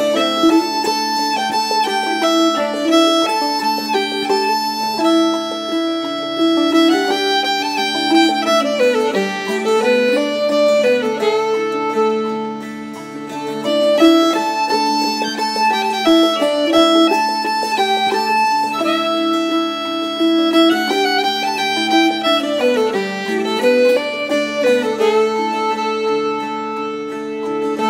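Instrumental background music: a melody of held notes with a few sliding passages over a steady accompaniment.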